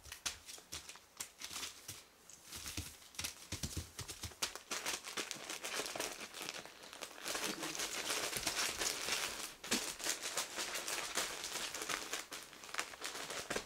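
Newspaper crinkling and rustling under young puppies' paws as they scramble and play on it, an irregular run of scratchy rustles and small clicks.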